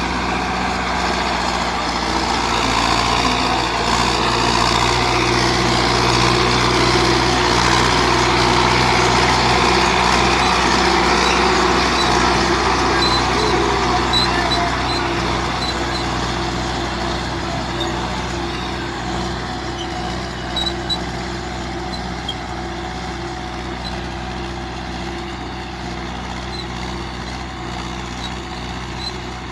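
Belarus 510.1 tractor's diesel engine running steadily under load while pulling a five-tine chisel plough. It is loudest in the first half and slowly fades toward the end.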